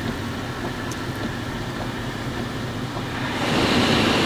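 Steady drone of a truck driving, heard inside the cab; about three seconds in, a loud rushing splash of water swells up as the truck ploughs through a deep flooded puddle and sprays water.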